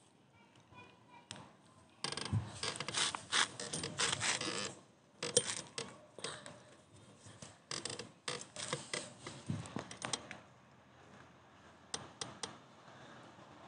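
Steel wall angles being fastened to a plaster wall with a hammer and a rotary hammer drill. A dense stretch of metallic clattering starts about two seconds in, followed by scattered sharp knocks and taps, with a few last clicks near the end.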